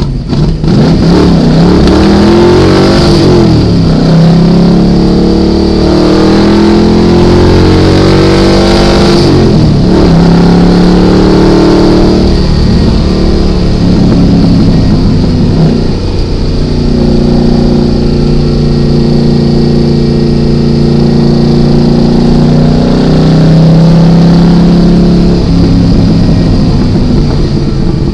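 1973 Datsun 240Z's engine heard from inside the car at speed on a race track, its pitch climbing and dropping again and again as it is driven through the gears between corners. It holds a steadier note in the second half.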